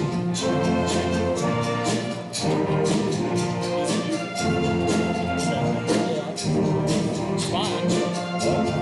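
Upbeat band music with brass over a steady percussion beat.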